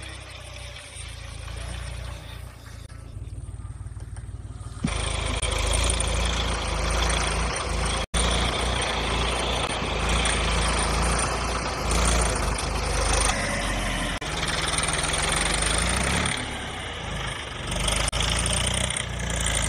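A vehicle engine running steadily with a deep rumble. It is quieter at first, gets much louder about five seconds in, and cuts out for an instant near eight seconds.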